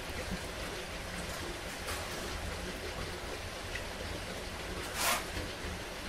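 Heavy rain falling as a steady, even hiss, with a short louder swish of noise about five seconds in.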